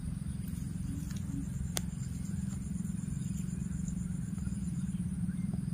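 Steady low engine-like rumble, with a single sharp click about two seconds in.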